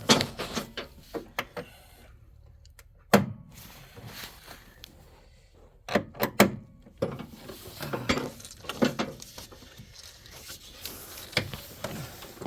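Irregular knocks and clunks from hands and tools working at the stuck upper radiator hose on a Dodge Dakota's thermostat housing, trying to twist and pull it free.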